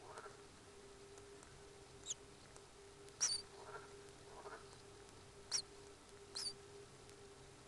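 Common kingfishers in the nest burrow giving four short, sharp, high squeaky calls, with softer, lower chirps between them.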